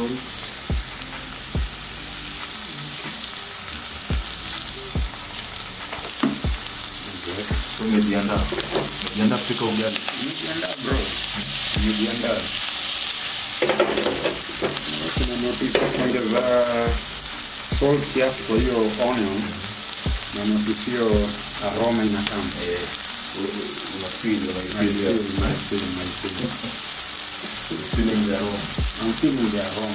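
Sliced red onions sizzling steadily as they fry in oil in a pan.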